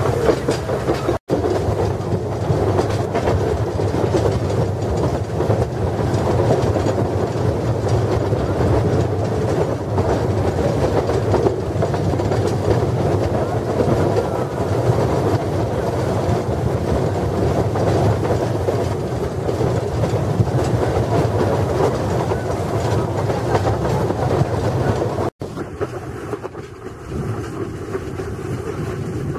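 Narrow-gauge tourist train heard from an open carriage: wheels rolling and clattering over the rail joints in a steady run. The sound cuts out for an instant twice and is softer for the last few seconds.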